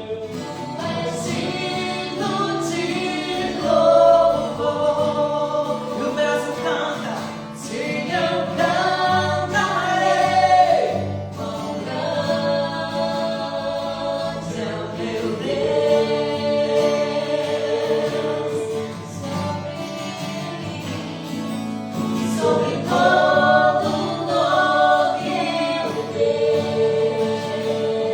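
Christian worship singing: a group of voices singing a slow worship song, holding long notes over steady instrumental accompaniment.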